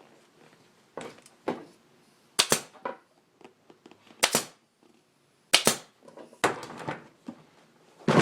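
Staple gun firing staples through a motorcycle seat cover into the seat pan: three loud sharp snaps a second or two apart, with quieter knocks and handling of the cover between them.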